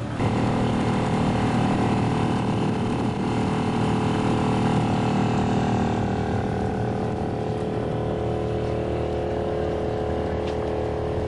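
The inboard engine of the Brixham sailing trawler Vigilance running under way. It is throttled up sharply just after the start, then holds a steady, even note that eases slightly near the end.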